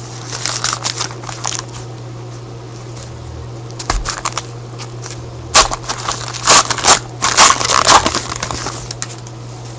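Foil trading-card pack wrapper being torn open and crinkled, in irregular bursts of crackling, densest in the second half.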